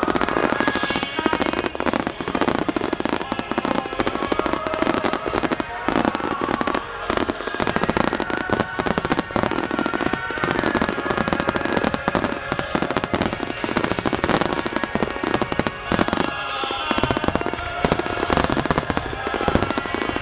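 Japanese starmine fireworks salvo: aerial shells bursting in dense, rapid succession, a continuous barrage of bangs and crackles, with music playing over loudspeakers.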